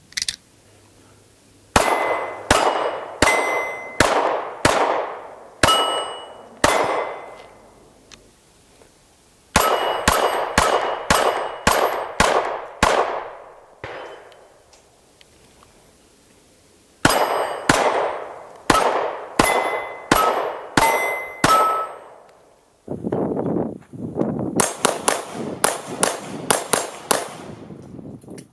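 Walther PPS M1 9mm pistol fired in four strings of quick shots, about seven or eight to a string, with short pauses between strings. The shots ring with a metallic clang, the sound of hits on steel targets.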